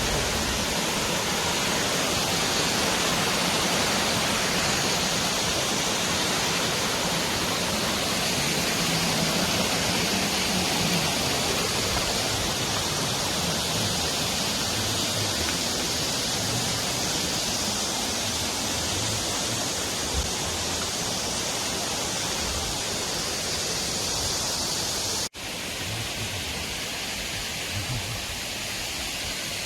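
Valley stream running high with rainwater: a steady rush of water. About 25 seconds in it breaks off for an instant and comes back duller.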